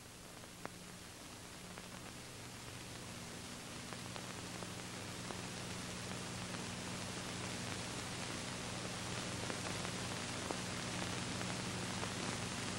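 Steady soundtrack hiss with a low electrical hum underneath, slowly growing louder, and one faint click about a second in.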